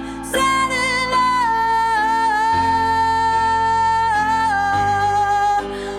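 Female lead vocal in a stripped-down acoustic rock song, holding one long sung note with vibrato that steps down in pitch a couple of times, over acoustic accompaniment with a chord change in the low end.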